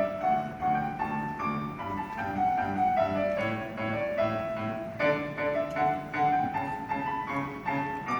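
Solo piano playing a classical-style piece: a stepping melody in the upper notes over evenly repeated low chords.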